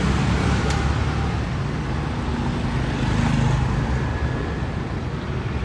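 Street traffic dominated by motorbikes: a steady rumble of small engines passing, with one brief sharp click a little under a second in.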